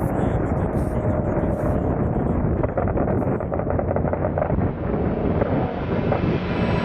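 A car driving, with a steady rush of engine, road and wind noise that grows brighter and hissier over the last few seconds.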